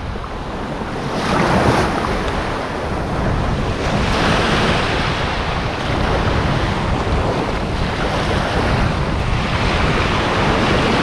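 Small waves breaking and washing up the sand, surging in and out several times, with wind buffeting the microphone.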